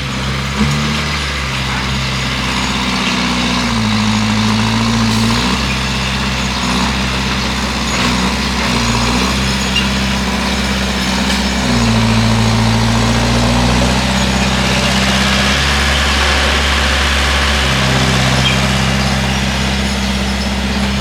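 Bulldozer's diesel engine running steadily while pushing earth, its pitch stepping up and down every few seconds, with a dense mechanical clatter over it.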